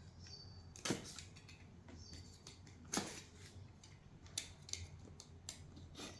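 Laptop's cardboard retail box being handled: scattered light taps and scrapes, with two sharper knocks about one and three seconds in.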